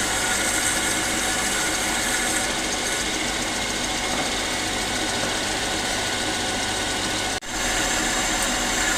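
A motor runs steadily with even mechanical noise. It cuts out for an instant about seven seconds in, then carries on the same.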